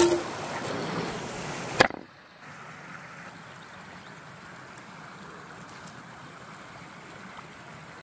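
Wood fire burning in the open, a noisy crackle with a sharp knock at the start and a loud crack just before two seconds in. It drops suddenly to a fainter, steady outdoor hiss for the rest.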